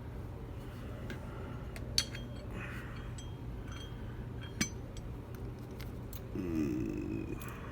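Small metal clinks and taps from a padlock and its picking tools being handled in a vise, with two sharp clicks about two and four and a half seconds in, over a steady low hum.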